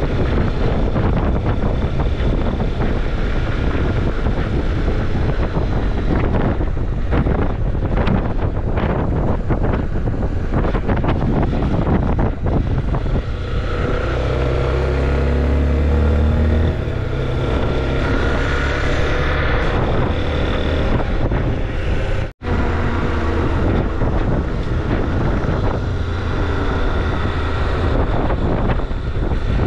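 Wind buffeting the camera microphone over the running single-cylinder engine of a Honda XRE 300 motorcycle at road speed. For a few seconds midway the engine note stands out more clearly and shifts in pitch, and about two-thirds through the sound cuts out for an instant.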